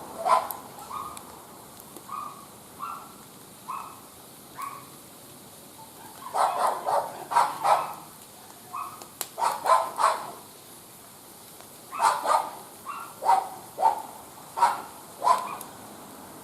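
A dog barking in short bursts of several barks, with single quieter yelps between the bursts.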